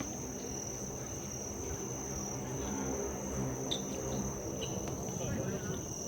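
Crickets chirping in a steady, high-pitched drone over low background noise, with a couple of faint clicks in the middle.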